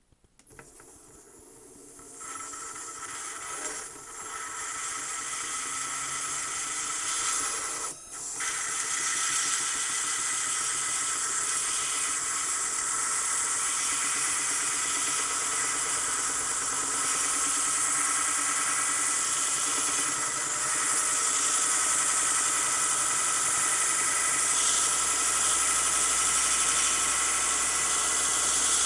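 Small abrasive belt grinder driven by a third-horsepower three-phase motor, grinding the undercamber of a metal turbine blade: a steady, loud hiss of belt on metal with a steady whine. It builds up over the first several seconds, drops briefly twice early on, then runs on evenly.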